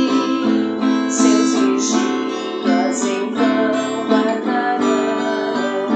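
Acoustic guitar strumming chords in a slow worship song.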